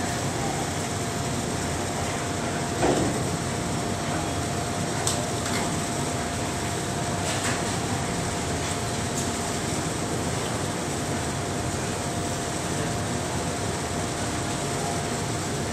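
Steady industrial machinery drone on an offshore platform, with a constant mid-pitched whine. A single knock about three seconds in and a few faint clicks later.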